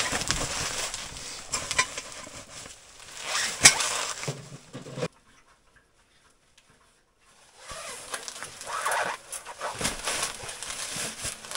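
Rustling and handling noise as a floor mat is spread out, then knocks and clinks as a small steel Bereg 'Ekonomka' tent stove is set on its legs. The sound drops to near silence for about two and a half seconds midway.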